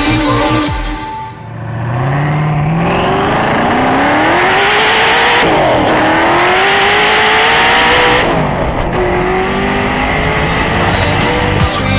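A fast car accelerating hard: the engine's pitch climbs steadily, drops sharply at a gear change about six seconds in, then climbs again before settling lower after about eight seconds.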